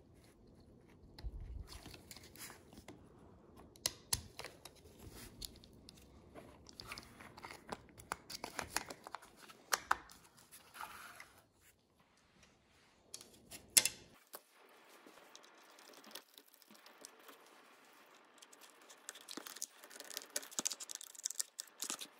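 Gloved hands handling and fitting the plastic parts of an electric pencil sharpener's gear mechanism: scattered light clicks and rustling, with one sharp click a little past the middle. Near the end, a denser scratching as a screwdriver turns a screw in the motor bracket.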